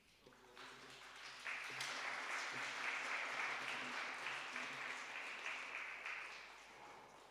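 Audience applauding. The clapping builds up over the first second and a half, holds, then thins out near the end.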